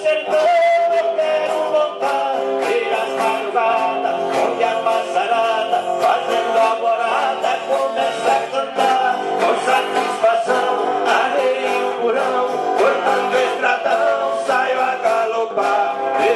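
Music: a country song with a man singing over plucked strings, of the kind played on the Brazilian viola caipira.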